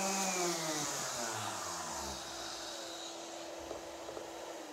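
Random orbital sander being switched off: its motor whine falls steadily in pitch over about two seconds as it spins down. A steady hum, the dust extractor on its hose, carries on and begins to wind down near the end.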